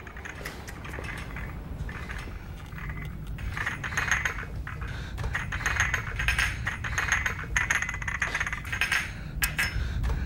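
China cup rattling and clinking rapidly against its saucer in a trembling hand, the rattle growing denser and louder toward the end, over a low steady rumble.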